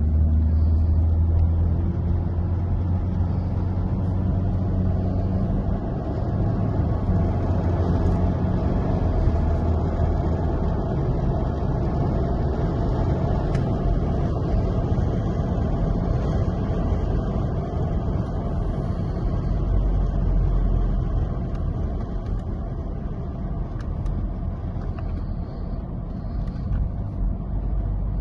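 A car driving along at speed, its engine and tyre noise making a steady low rumble throughout.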